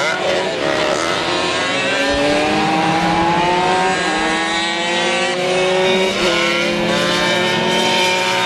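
Tuned Simson two-stroke single-cylinder mopeds racing, engines revving high. The pitch climbs over a second or two and drops at each gear change, again and again, with more than one bike heard at once.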